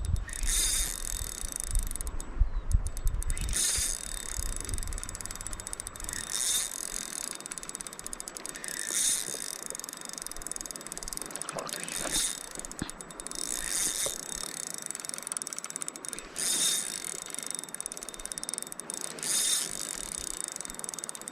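Fishing reel being cranked in short spurts every two to three seconds, its gears ratcheting as line is wound in.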